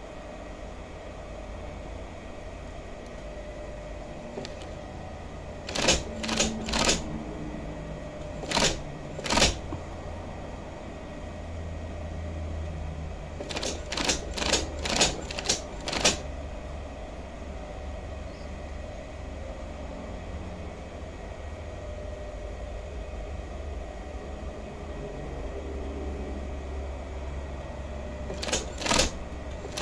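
Union Special 35800 industrial double-needle chainstitch machine sewing denim: a steady low motor hum, broken three times by short runs of loud, sharp mechanical clacks from the machine, a few clacks each.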